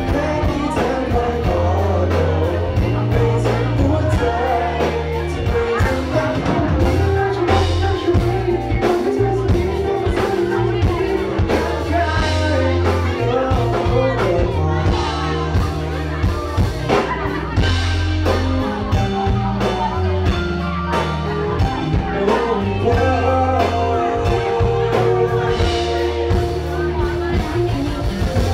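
A song played live by a band with a lead singer, over a steady beat.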